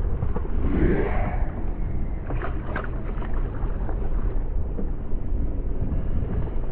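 Muffled wind and water noise around a fishing kayak on open water, with a few brief sharp sounds near the middle and just before the end.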